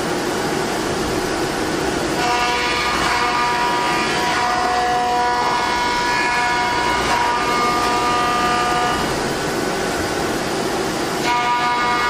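Three-axis CNC milling machine cutting POM-C plastic: a steady machining noise with a whining tone that comes in about two seconds in, drops away around nine seconds and returns near the end.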